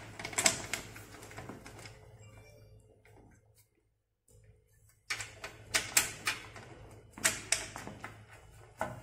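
Sharp knocks and clacks of a bookshelf side panel being handled and fitted onto its wooden base, a cluster near the start and more in the second half, with a short silent gap before the middle.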